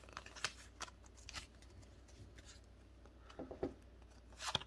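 Faint ticks and rustles of a stack of Pokémon trading cards being handled, cards slid from one hand to the other, with a sharper click near the end.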